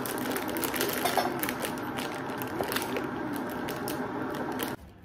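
Kettle heating with a steady rushing noise and small crackles, along with the crinkle of a plastic raisin packet being handled. The noise cuts off abruptly near the end.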